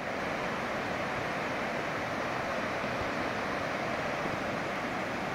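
Steady, unbroken rushing of Whitewater Falls, a tall cascade of water tumbling down a rock face.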